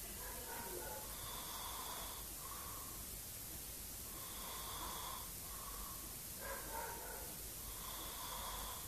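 A man snoring in his sleep, a snore on each breath repeating about every three seconds, three times over.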